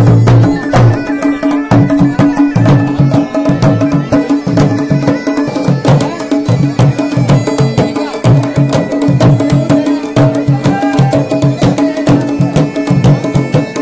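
Garhwali folk dance music: a dhol drum beating a quick, steady dance rhythm, with a held tone running under it.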